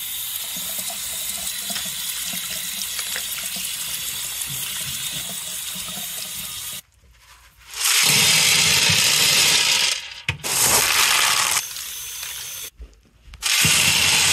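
Tap water running over clay pebbles in a plastic colander. After a short break, wet clay pebbles are poured from the colander into a glass tank in three loud, rattling pours that start and stop abruptly.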